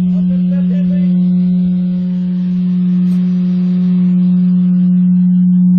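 A car sound system playing one steady, loud low tone, unbroken, with faint overtones above it, like a test tone used to check the speakers.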